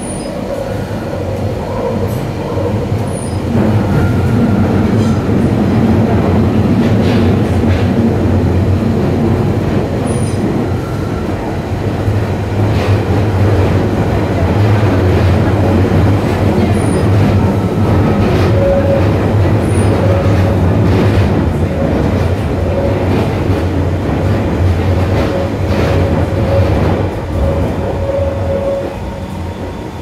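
Waterloo & City line 1992-stock (Class 482) tube train running through its tunnel, heard from inside the carriage: a loud, steady rumble of wheels on rail that builds over the first few seconds and eases near the end. Scattered sharp clicks come through it, and in the second half a thin, intermittent whine.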